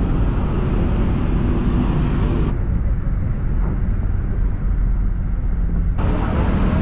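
Steady wind and road rumble from riding in the open back of a small shuttle truck in traffic: engine and tyre noise low down, with air rushing past the open sides. The upper hiss drops away abruptly for a few seconds in the middle, then returns.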